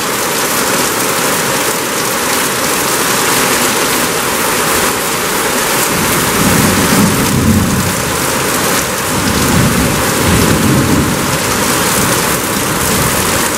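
Very heavy rain falling hard and steadily, with low rumbles of thunder swelling about six seconds in and again about nine seconds in.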